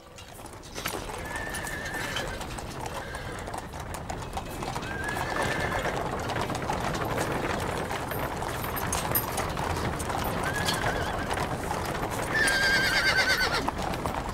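Horse-drawn chariot on the move: hooves clattering and wheels rattling over gravel, with short whinnies along the way and a louder, wavering neigh near the end.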